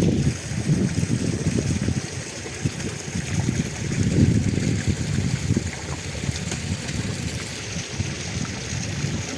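Mountain stream water running and splashing, with uneven surges and no steady rhythm.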